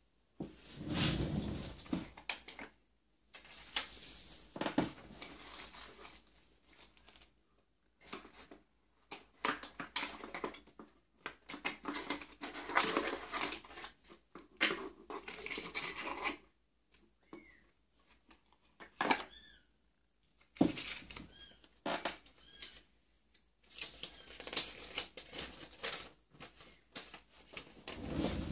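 Hands unpacking a small cardboard product box and its bagged parts: cardboard, paper and plastic bags rustling, with taps and clicks as items are set down on a wooden bench, in irregular bursts with short pauses.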